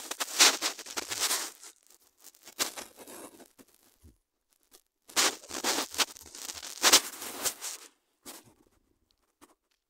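Rustling, crackling handling noise with sharp clicks in irregular bursts, the phone's microphone being rubbed and tapped while the screen is worked, with quiet gaps between the bursts.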